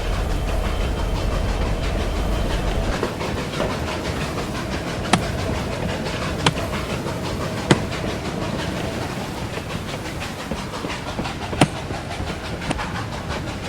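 Hand-made foley of a steam locomotive running on the rails: a steady rushing hiss and rattle, its low rumble falling away about three seconds in. Four sharp knocks are scattered through it, the loudest near the end.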